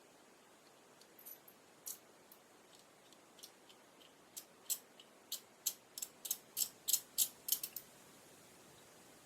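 Small hand tool working plastic model kit parts: a run of short, sharp snips, sparse at first, then coming faster and louder at about three a second before stopping near the end.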